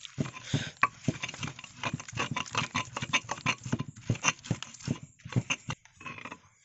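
Stone pestle pounding and grinding a wet spice paste in a stone mortar: quick, irregular knocks and squelches, several a second, thinning out near the end.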